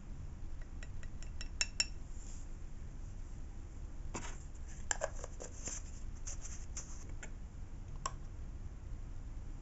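Plastic spoon clicking and scraping against a small jar and a ceramic well palette while egg medium is spooned out: a few light clicks about a second in, a busier run of clinks and scrapes from about four to seven seconds, and one more click near the end.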